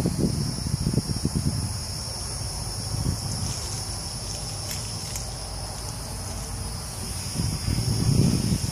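Steady, high-pitched chorus of insects, typical of crickets. Low rumbling noise on the microphone comes near the start and again near the end, and is the loudest sound there.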